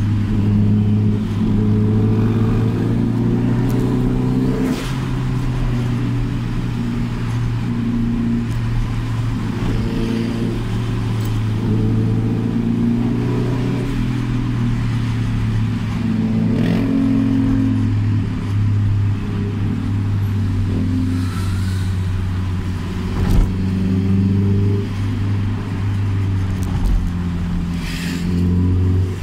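Toyota Celica ST205's turbocharged four-cylinder engine and freshly repaired exhaust, a steady low drone heard inside the cabin while driving in slow traffic, the pitch shifting a little now and then with the throttle. A single sharp knock about 23 seconds in.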